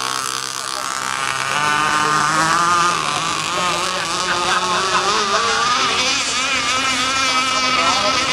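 Radio-controlled drag boat's motor running at speed across the water, its pitch wavering up and down continuously as the boat skims.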